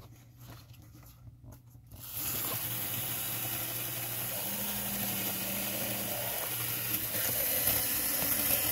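Small electric motor and gearing of a Life-Like N scale locomotive running in reverse on test power: a steady whirring hiss that starts suddenly about two seconds in, after a quiet stretch with a few light clicks. The locomotive's drive works in reverse.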